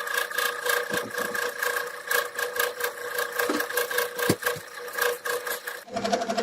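A motorised machine running with a steady whine and rapid, evenly repeated ticks, its pitch changing abruptly about six seconds in.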